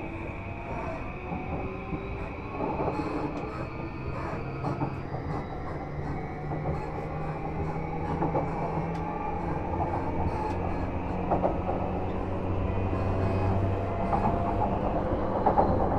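Inside a moving JR East E235 motor car: the Mitsubishi SiC-MOSFET VVVF inverter and traction motors whine in several tones, some slowly rising, over the running rumble. Wheels click now and then over rail joints, and the whole sound grows gradually louder.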